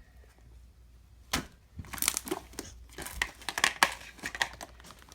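Slime being squeezed and worked by hand, giving sharp crackling pops and clicks. A single pop comes about a second and a half in, then a dense run of crackles.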